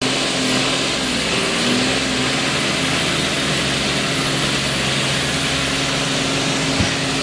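Truck engine running steadily, a dense drone with a steady low hum under it, and a single short knock near the end.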